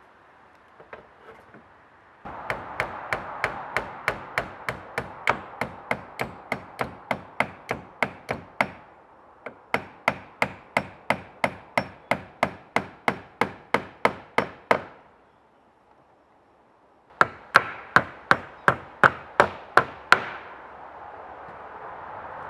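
Hammer driving nails into wood: a long run of steady, even blows, about two and a half a second, a short pause, then another quicker run of blows.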